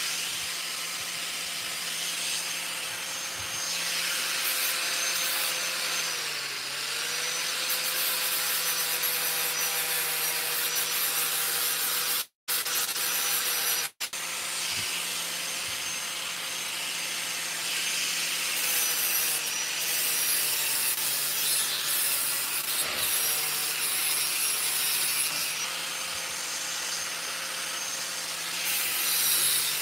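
Angle grinder with a flap disc running steadily as it grinds the edges and corners of a thick steel plate round. Its motor pitch dips briefly under load about six seconds in. The sound cuts out twice for an instant, about twelve and fourteen seconds in.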